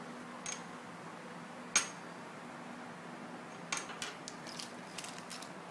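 Small stainless steel atomizer parts clicking and clinking as they are handled and set down on a table: one sharp click about two seconds in, then a few lighter clicks near the end.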